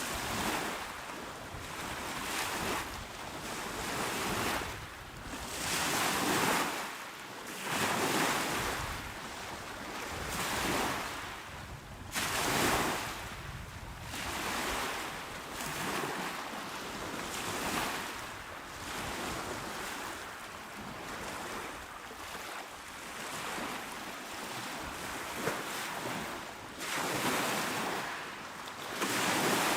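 Small, calm sea waves breaking and washing onto a shore, the surf rising and falling in repeated swells every couple of seconds.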